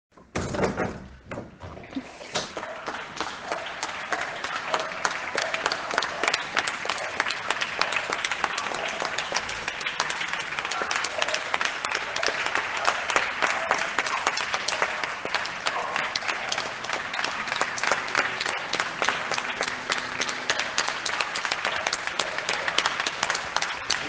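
Audience applause: many hands clapping densely and steadily. It begins abruptly and fills out within the first couple of seconds.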